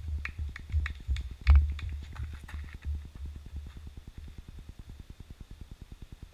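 Low wind rumble on the microphone, pulsing evenly. Over the first three seconds it is joined by a run of sharp taps about three a second, the loudest a thump about a second and a half in, which die away as runners pass the camera and leave the frame.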